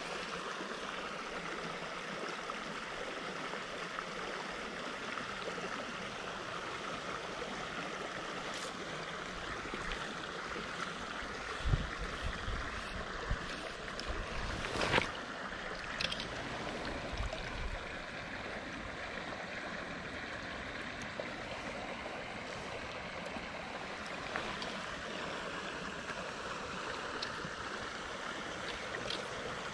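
Shallow stream running steadily over a gravel riffle. A few low thumps and a sharp click come about halfway through.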